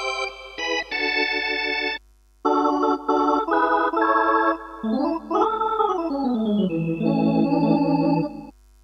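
Roland XPS-10 keyboard played with an organ-like voice from a luk thung–mor lam sample set: a run of chords, a short break about two seconds in, then held chords with a pitch bend that swoops up and back down, settling on low held notes that stop near the end.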